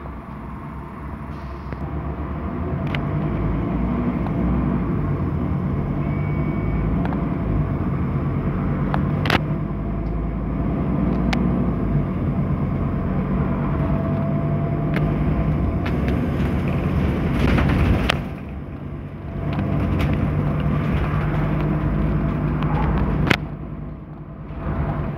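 Scania N230UD double-decker bus's five-cylinder diesel engine and drivetrain heard from the upper deck while the bus drives, a steady low rumble that grows louder about two seconds in. A few sharp body rattles or knocks come through, and the engine note dips briefly twice near the end.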